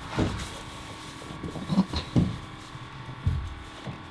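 A handful of dull thumps and knocks against the lifeboat's hollow hull as a person in a wetsuit climbs out through a side window, over a faint steady hum.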